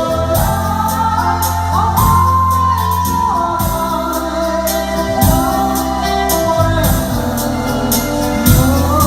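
Korg Pa3X arranger keyboard playing a backing style: a steady drum beat and bass line under a lead melody that slides and bends in pitch.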